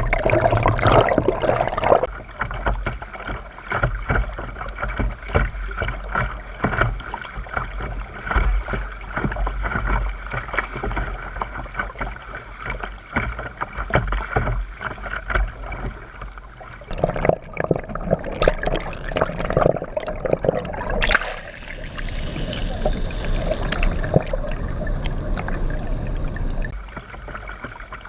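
Kayak paddle strokes dipping and splashing, water dripping off the blade and small knocks on the hull, over a steady cicada drone. The water noise grows fuller for about ten seconds past the middle.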